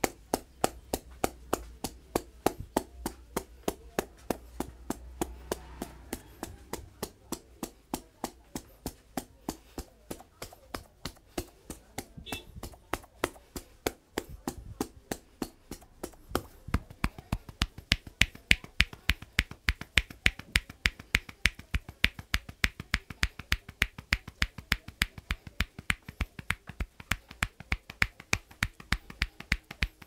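Quick, even hollow claps from a barber's clasped, interlaced hands striking the top of the head in a percussive Indian head massage, about three to four a second, louder from a little past halfway.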